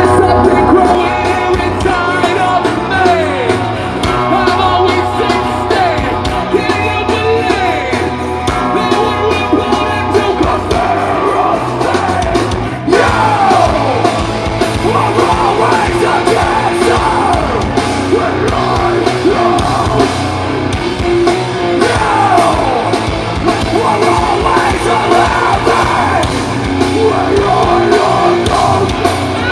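Live metal band playing loud, with guitars and drums under a vocalist singing and yelling. The music drops for a moment just before the halfway point, then carries on.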